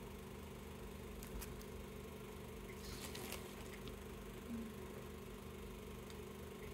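Quiet room tone: a steady low hum, with a few faint clicks and light handling noises.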